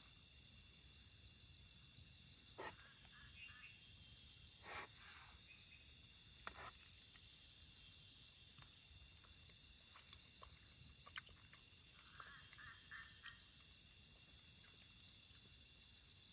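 Faint, steady chorus of crickets in the grass at night, with a few light clinks of a metal spoon on a steel plate while eating. A short run of chirping calls comes about twelve seconds in.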